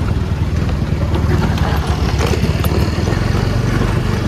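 Motorcycle engine running steadily as the bike rides along, heard from on the bike.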